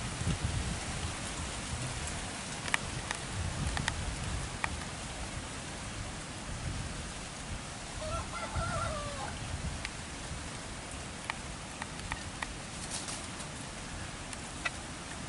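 A rooster crows once about eight seconds in, a call that rises and then falls and lasts about a second and a half. Under it are a steady hiss and low rumble with a few sharp clicks.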